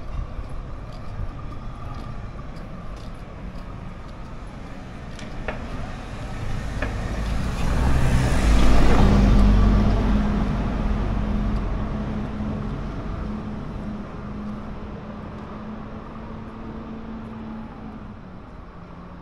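A motor vehicle passes close by: engine and tyre noise build up to a peak about halfway through, then fade away slowly, with a steady low engine hum trailing off as it moves off.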